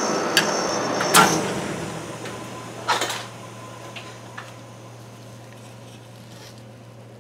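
Steel spatulas scraping on a stainless-steel ice cream cold plate, then two sharp metal clanks, about one and three seconds in, as the spatulas and a steel cup are set down on the plate. After that only a low steady hum and a few faint ticks.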